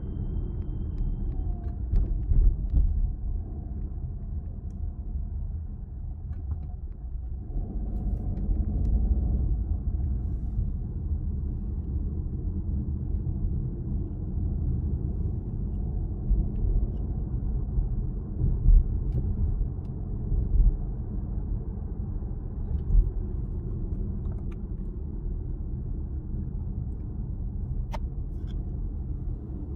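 Cabin noise inside a moving Peugeot 408: a steady low road and tyre rumble, with a few brief thumps.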